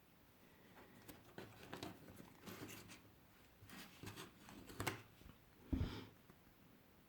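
Faint rustling and light clicks of small plastic items and packaging being handled, with one louder knock about six seconds in.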